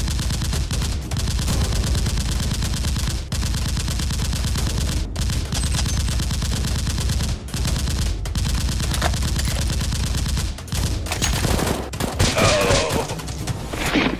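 Sustained rapid automatic gunfire, a fast unbroken stream of shots with a few brief pauses, in a staged blaster firefight; a voice cries out near the end.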